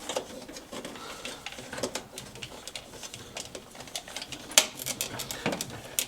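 Hands handling wiring and a clamp meter: scattered light clicks, taps and rustling, with two sharper snaps near the end.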